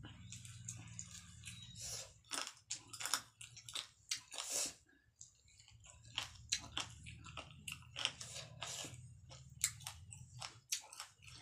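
Close-up eating sounds of a person biting and chewing grilled chicken: an irregular run of wet smacks and clicks from the mouth.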